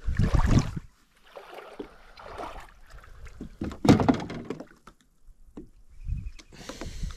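Wind buffeting the microphone in gusts, with irregular knocks and rustling handling noises; the loudest knock comes about four seconds in.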